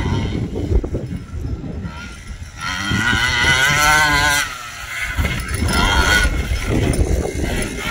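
Primal RC Raminator 1/5-scale monster truck's two-stroke gas engine revving while the truck drives, its pitch wavering up and down. The loudest, highest revs come about three to four and a half seconds in and again around five to seven seconds, over a low rumble.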